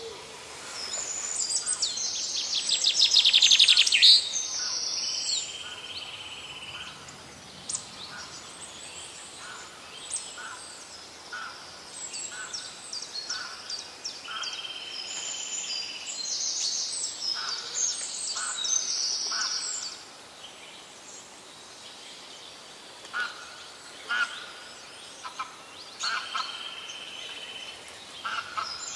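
Birds chirping and trilling, with many short high calls. A loud rapid trill comes about three seconds in, and a buzzy steady call lasting a second or two comes back three times.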